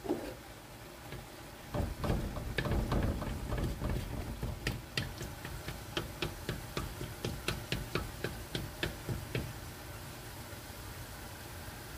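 Wooden spatula knocking and scraping against a steel wok while stirring eggs into noodles: a run of quick clicks and knocks, about three or four a second, starting about two seconds in and stopping a couple of seconds before the end, over a steady low hum.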